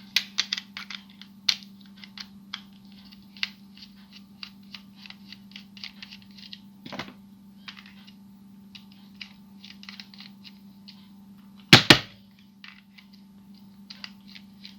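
Small screwdriver working a screw out of a plastic toy figure: a run of small, irregular clicks and ticks, with a louder double knock about twelve seconds in. A faint steady hum lies underneath.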